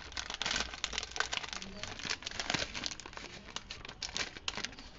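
Crinkly plastic packaging of a makeup brush set being handled and opened: a run of crackles and rustles, dense at first and thinning out in the second half.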